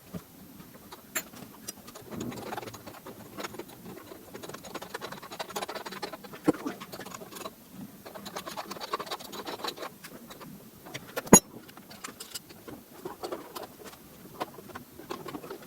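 Scattered clicks, scrapes and rustling of parts and tools being handled while a moped's front fork and handlebar are put back together, with one sharp knock about eleven seconds in.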